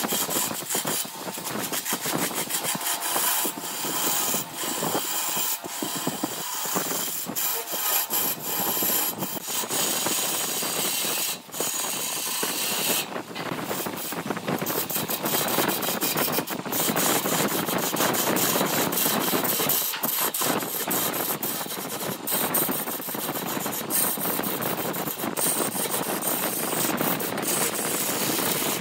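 A turning gouge cutting a spinning blank of glued bamboo chopsticks and epoxy resin on a wood lathe: a continuous rasping scrape with rapid, irregular ticks as the tool bites. The cut breaks off briefly about eleven seconds in.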